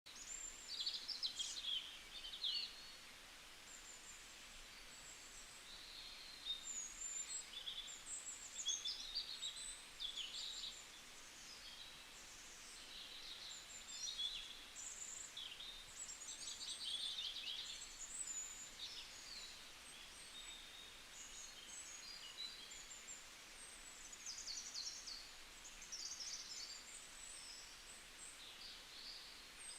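Forest birdsong: several birds singing in quick, overlapping chirping phrases, one after another, over a faint steady hiss.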